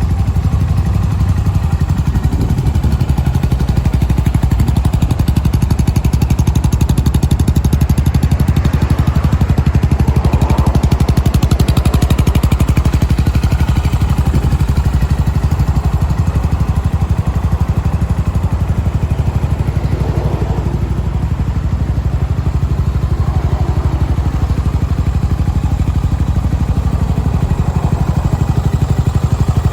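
Yamaha SR400's air-cooled single-cylinder four-stroke engine running steadily at idle through an aftermarket GOODS silencer, with an even, rapid beat of exhaust pulses.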